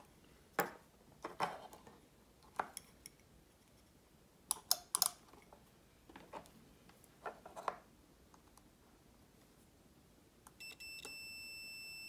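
Light clicks and taps of alligator clips and test probes being handled on an automotive relay's prongs. Near the end a Gardner Bender digital multimeter's continuity beeper starts a steady high tone, the sign that the relay's switched circuit is closed, with good continuity.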